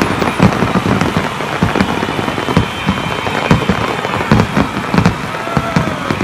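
Fireworks display: a rapid, irregular series of bangs over continuous crackling from bursting shells.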